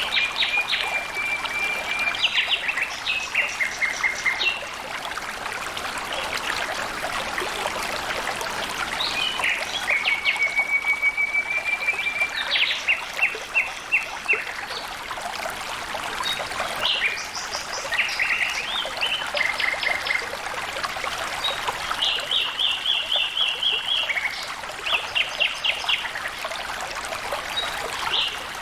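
A small stream trickling and splashing steadily, with a songbird singing over it again and again: level trills followed by fast runs of short, high notes.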